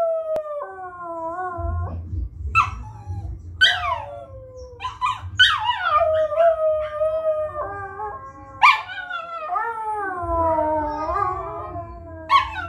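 Small long-haired black-and-white dog howling: a string of long drawn-out howls, each starting on a sharp high yelp and sliding down in pitch, with a new howl every few seconds.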